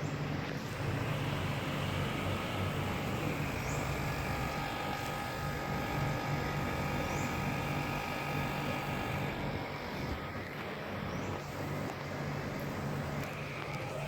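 Samsung mini split air conditioner running, a steady low hum with a whine of several tones above it.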